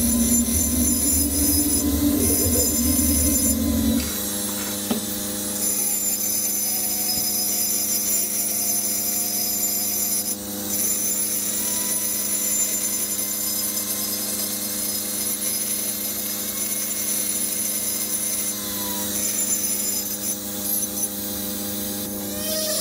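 Small pencil die grinder running at high speed with a steady high whine, its bit blending and reshaping weld in a cylinder head's combustion chamber. A lower rumble under the whine stops about four seconds in, and the pitch sags and recovers slightly as the bit bears on the metal.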